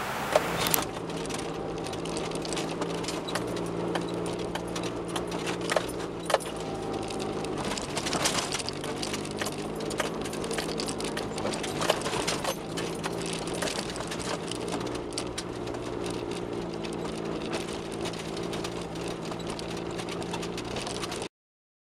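Car engine running at low speed while the tyres crunch and pop over a gravel road, heard from inside the car. The sound cuts off suddenly near the end.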